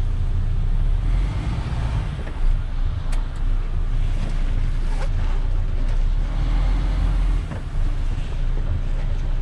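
Heavy truck's diesel engine running, heard from inside the cab as a steady low rumble while the truck moves slowly.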